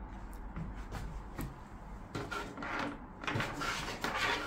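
Handling noise: light rustles and knocks as a Starlink cable and its plastic plug are picked up and moved about on a desk, with a faint click about a second and a half in.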